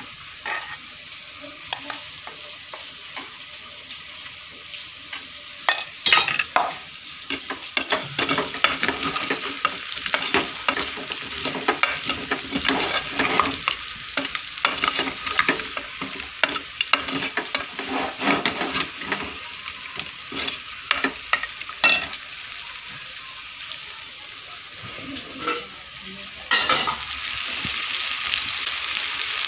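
Mutton sizzling as it fries with spices in an aluminium pressure cooker, stirred with a steel ladle that scrapes and clinks against the pot again and again. The sizzle swells louder near the end.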